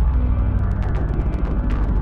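Synthesized sci-fi spaceship sound effect: a loud, steady low electronic drone with held tones, sprinkled with many quick crackling clicks.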